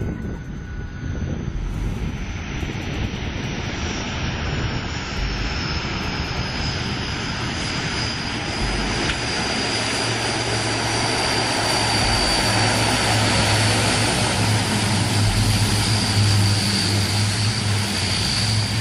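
Aircraft engine noise: a steady roar that grows louder, with a high whine slowly falling in pitch and a low hum that strengthens in the second half.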